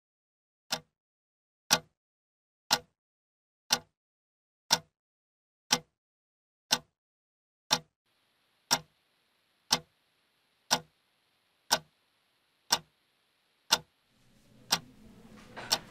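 A clock ticking once a second, evenly and sharply, about fifteen ticks. Near the end faint low room noise rises beneath the ticks.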